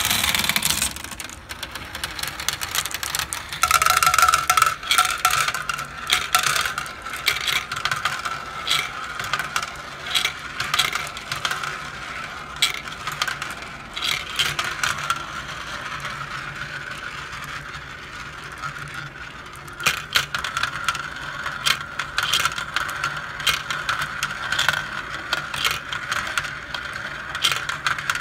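Glass marbles rolling and clattering down a plastic marble-run track and spinning round plastic funnel bowls. The sound starts suddenly as they are released, then runs on as a steady rolling whir, with many clicks of marbles knocking against each other and the plastic.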